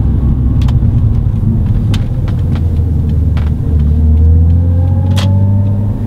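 Lexus IS200's 2.0-litre straight-six running through a Cobra Sport resonated cat-back exhaust while driving, a deep steady rumble. The pitch dips, then climbs slowly over the second half as the car gathers speed.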